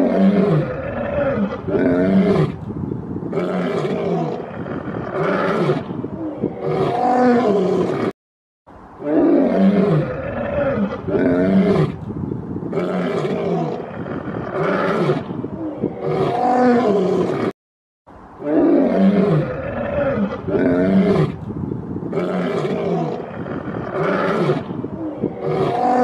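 Lion roaring and grunting: a series of deep, moaning calls about once a second. The sequence breaks off briefly twice and starts over, as a repeated loop.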